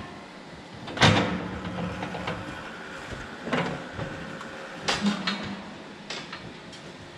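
A handful of sharp metallic clanks and knocks from a cow hoof-trimming crate's steel frame and fittings. The loudest comes about a second in; the rest are spread out.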